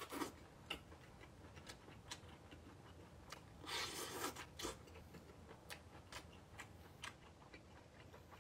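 Faint mouth sounds of a person eating mini octopus: scattered small clicks of chewing, with a short, louder mouth noise about four seconds in as a piece is taken from the chopsticks.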